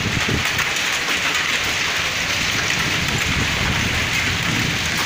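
Heavy hail mixed with rain pelting a wet paved courtyard: a dense, steady hiss with many small sharp ticks of hailstones striking.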